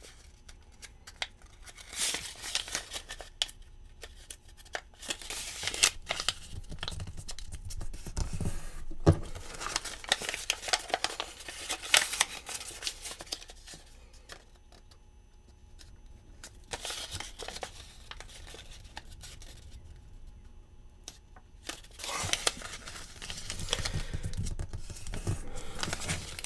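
A paper US dollar bill being folded and creased by hand: crisp crackling and crinkling of the banknote as fingers work and press the folds. It comes in bouts, with a few quieter seconds past the middle.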